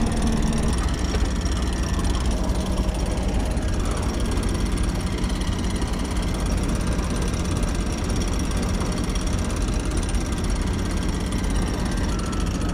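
Sailing yacht's engine running steadily under motor: a continuous low rumble.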